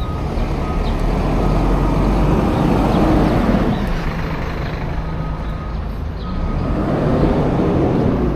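Street traffic: motor vehicles passing on a city road, the noise swelling up twice, about three seconds in and again near the end, over a steady low engine hum.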